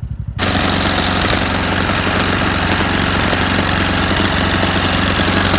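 Riding lawnmower's small engine running, throttled up sharply about half a second in and then held at a steady high speed.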